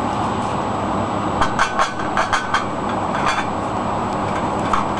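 A quick run of sharp light taps, about six in just over a second, then two more single taps, as a tool knocks the circuit board on the stove-heated plate to work a loosened chip off its melted solder balls, over a steady rushing noise.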